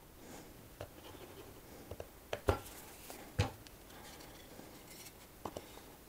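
Light handling sounds on a workbench: a few short wooden knocks and taps as small pieces of fence picket are set upright on a glued board. The two loudest knocks come about two and a half and three and a half seconds in.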